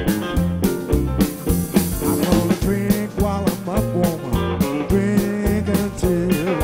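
Live blues band playing: an amplified blues harmonica played into a cupped microphone, its notes wavering and bending, over drum kit, electric bass, electric guitar and keyboard keeping a steady beat.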